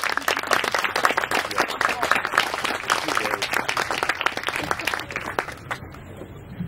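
Audience applauding: many hands clapping densely, the clapping thinning out and dying away near the end.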